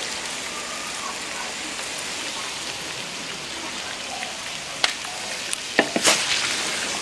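Pork belly in a thick sauce sizzling in a hot wok, a steady hiss as the sauce reduces over high heat. A few sharp clicks come near the end.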